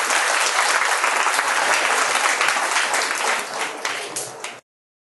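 Audience applauding steadily at the close of a lecture, cut off suddenly near the end.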